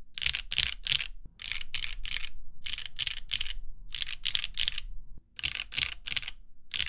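Typing on a Graystudio Macross 65 mechanical keyboard fitted with Cherry MX Black linear switches on an aluminum plate: a steady run of keystrokes, several a second, with two short pauses about a second in and near five seconds in.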